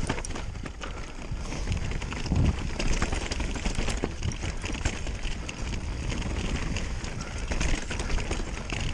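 Specialized Turbo Levo e-mountain bike riding down a rocky trail: tyres crunching over stones and the bike rattling over bumps, a dense run of quick clicks and knocks with a low rumble beneath.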